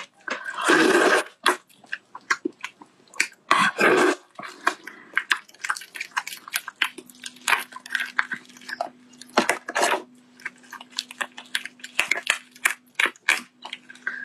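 Giant shrimp being peeled by hand, the shells cracking and tearing: a run of many short crackling clicks, with two louder, longer tearing sounds in the first four seconds.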